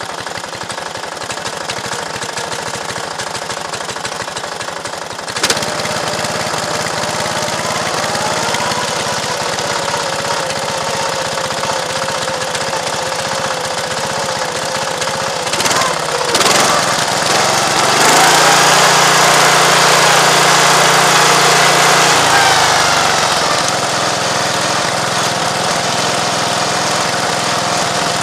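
Small engine of a miniature-railway speeder running as it rides along the track, with a fine rapid clatter at first. Its pitch rises a quarter of the way in, then it runs louder and higher past the middle before easing back near the end.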